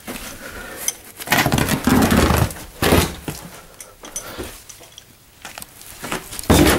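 Old carpet being pulled up off its nailed tack strips: irregular bursts of ripping and scraping as the backing tears free of the strips, with a louder thump near the end.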